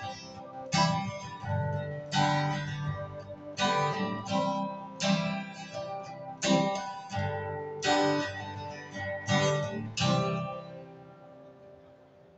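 Strummed guitar chords closing out a song, in accented strokes every second or so. The last chord rings out and fades away over about two seconds near the end.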